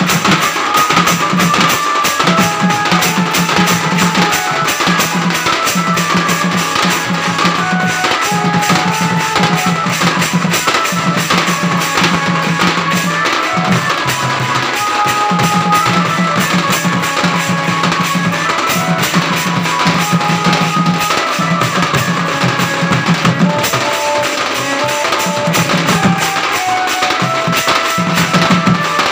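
Folk drumming: a small stick-beaten side drum played in fast, dense strokes together with a large frame drum, keeping up a rapid steady rhythm. A high melody of held notes runs over the drumming, with a low note that comes and goes.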